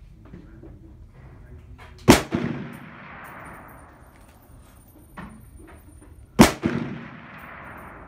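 Two AR-15 rifle shots about four seconds apart. Each one cracks sharply, is followed a moment later by an echo, and then rings off.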